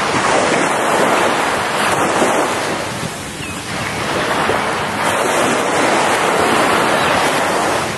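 Ocean surf washing onto a beach: a steady rushing hiss that eases briefly about three seconds in, then swells again.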